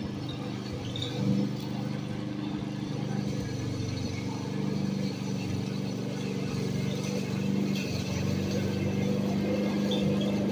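Walk-behind rotary lawn mower engine running steadily while cutting grass, growing louder as the mower is pushed closer.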